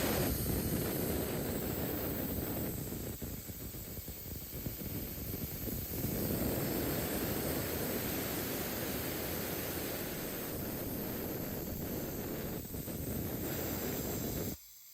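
A plasma cutter's torch cutting steel with a steady, loud, rushing hiss that cuts off suddenly near the end.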